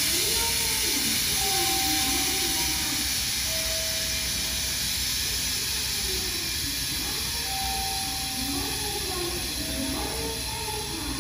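A 7200-series electric train standing at the platform with a steady hiss, while a tune of held notes plays over it, each about a second long.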